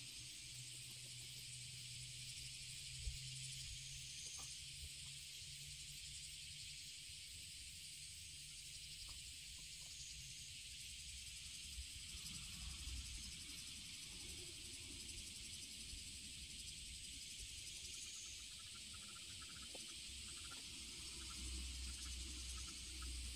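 Steady, high-pitched chorus of insects, with a faint low rumble underneath and a few faint ticks.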